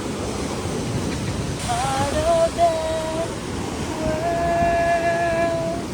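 Strong wind blowing over the microphone and Pacific surf crashing on a rocky shore, a continuous rushing noise. Two long, steady held notes sound over it, about two and four seconds in.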